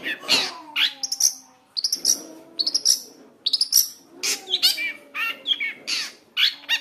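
Long-tailed shrike singing a fast, varied song of short harsh chattering notes mixed with clear whistled slides, with brief pauses between phrases; a 'full isian' cendet song, packed with phrases copied from other birds.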